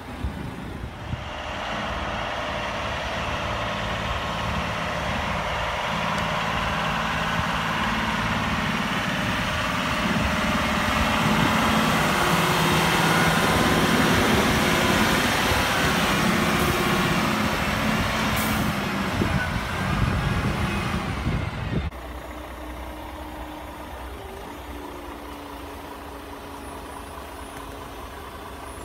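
Tatra 8x8 dump truck's diesel engine working hard as the truck climbs rough off-road ground, growing louder toward the middle. About 22 seconds in the sound drops abruptly to a quieter, steady engine hum.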